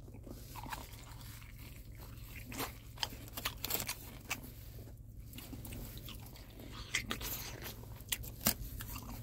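A person biting into and chewing a crunchy breaded fried chicken wing: irregular crisp crunches and crackles of the coating, coming more often in the second half.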